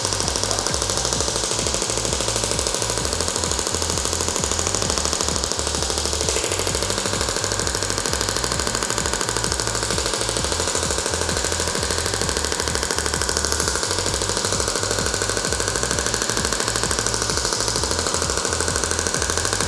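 Shockwave therapy handpiece firing a rapid, steady train of pulses into the shoulder tissue, a fast mechanical tapping that stops suddenly at the end.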